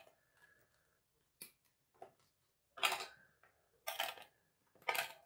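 Cardboard jigsaw puzzle pieces being pulled apart and lifted off the board by hand: a couple of faint clicks, then three short scrapes about a second apart.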